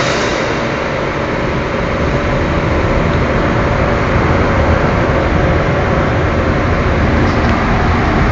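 A cutting machine running steadily: continuous mechanical noise with a constant hum and a low rumble, getting a little louder about two seconds in.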